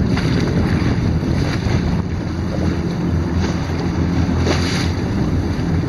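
Jet ski engine running at low speed, a steady low hum, with wind buffeting the microphone and water washing around the hull.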